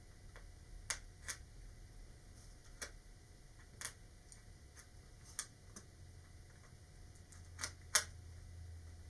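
Hobby knife blade plunging into and cutting thin vacuformed plastic: faint, sharp clicks at irregular intervals, about seven in all, the loudest near the end.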